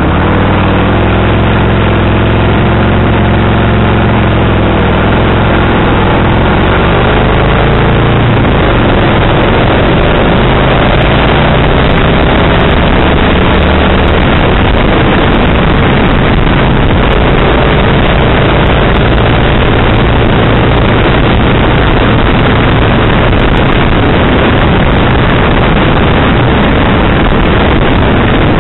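Kawasaki VN1500 V-twin motorcycle engine pulling away and accelerating, its pitch rising over the first several seconds. After that it runs at speed, mostly covered by heavy wind rush on the microphone.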